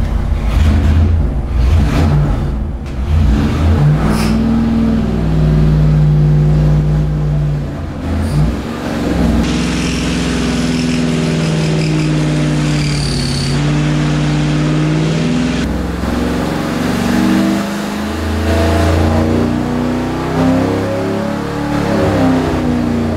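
A 241 cubic inch first-generation Hemi V8 running loud under load on an engine dyno during a power pull, its pitch holding and then shifting as the revs change. A hiss joins for several seconds in the middle.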